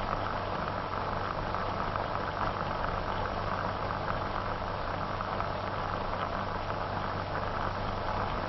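Steady hiss with a constant low hum and nothing else, the background noise of an old optical film soundtrack.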